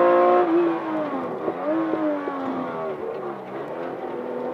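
Classic Porsche 911's air-cooled flat-six engine heard from inside the cabin. The revs fall as the car slows into a hairpin, then rise and dip twice as it accelerates out through the gears.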